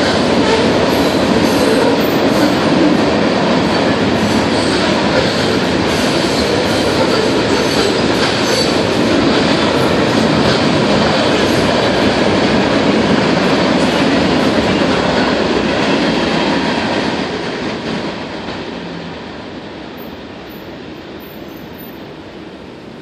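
Freight train cars rolling past a street-level grade crossing: a steady rumble and clatter of steel wheels on rail. It fades from about seventeen seconds in as the end of the train goes by.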